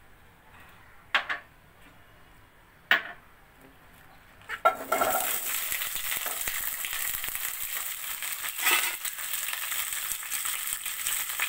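Potato and cauliflower pieces dropped into hot mustard oil in a wok, sizzling steadily from a little under five seconds in. A few sharp clicks come before the sizzle starts, and a knock comes near the end.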